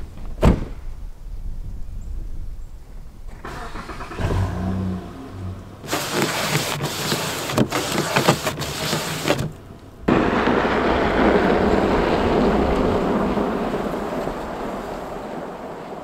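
Car sounds heard from inside the cabin: the engine starting and running, and the rear wiper scraping across a frost-covered rear window. About ten seconds in, a steady rushing noise starts abruptly and then slowly fades.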